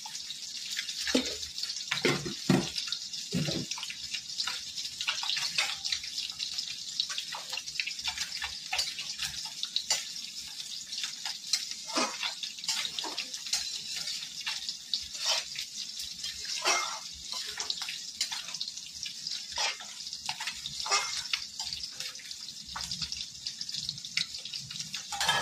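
Fish pieces frying in hot oil in a kadai: a steady sizzle full of quick crackles and spits. There are a few louder knocks in the first few seconds.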